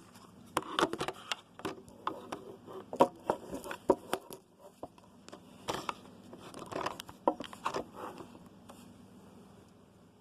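Irregular clicks, light knocks and scraping: a vacuum cleaner being handled and fiddled with rather than running. The handling fades out near the end.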